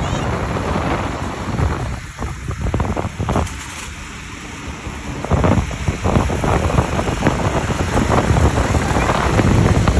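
Loud wind buffeting the microphone over rushing, slapping water on a craft moving at sea, with irregular knocks and a short lull about two to five seconds in.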